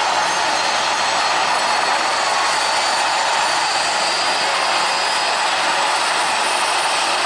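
Rear-mounted turbofan engines of an Embraer Legacy business jet running steadily at low taxi power: an even rushing hiss with a faint high whine over it.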